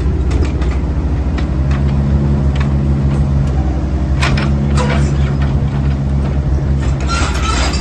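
Diesel engine of a Kubota KX155-3SZ tracked excavator running steadily, its note shifting slightly. Two sharp metallic clanks come about four and five seconds in, and a rattling clatter starts near the end.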